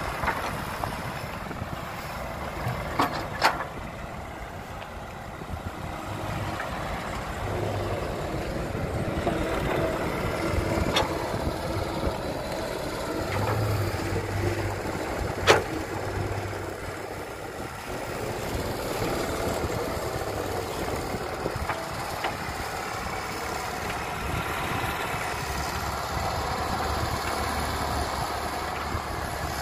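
Caterpillar hydraulic excavator's diesel engine running steadily as it digs and loads earth into a small dump truck, with a few sharp knocks of the bucket and dirt clods hitting the steel bed, the loudest about halfway through.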